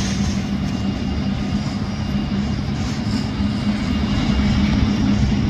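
Steady jet aircraft engine noise: a constant low drone with a hum and a hiss above it, growing slightly louder near the end.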